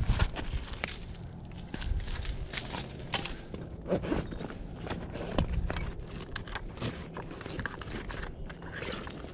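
Irregular crunching, scraping and sharp clicks of a person shifting on a gravel bank and handling fishing gear.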